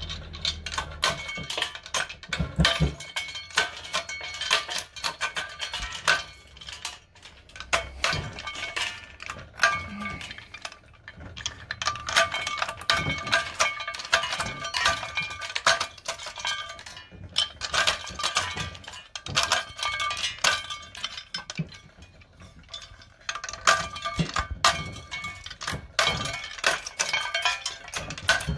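Hand-cranked stainless-steel nut cracker crushing hazelnuts: rapid crackling of shells with metallic clinking as shells and kernels fall into a steel tray. It comes in spells with short pauses.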